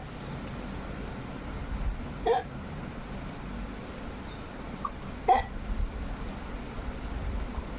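Baby hiccuping: two short, sharp hiccups about three seconds apart, each with a quick upward flick in pitch.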